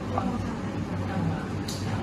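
Steady low room hum with faint low voices, and a brief rustle of paper sheets being handled near the end.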